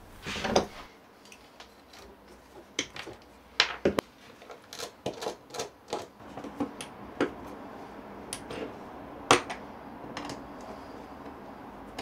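Irregular small clicks, taps and clatter of hands working a screwdriver, copper wires and plastic junction-box parts on a wooden bench, the sharpest tap about nine seconds in.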